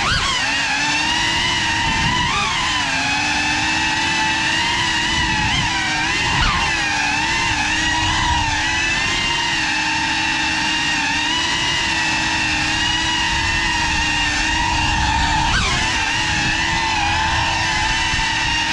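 GEPRC Cinelog35 cinewhoop quadcopter's motors and propellers whining steadily in flight, the pitch bending up and down briefly a few times as the throttle changes.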